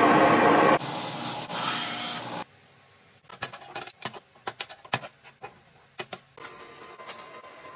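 Red-hot steel quenched in a tall quench tube: a loud rushing hiss that breaks off about two and a half seconds in. Then scattered light metallic clicks and taps as the forged steel claws are handled and fitted together on a steel worktable.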